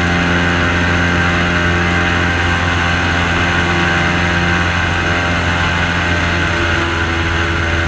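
Airboat's engine and air propeller running steadily as the boat cruises, a loud, even engine note that shifts slightly about six and a half seconds in.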